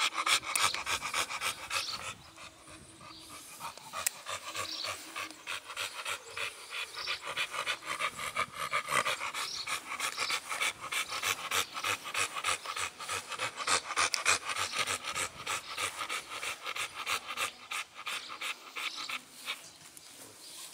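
American bully dog panting hard with its mouth open, in quick, even breaths.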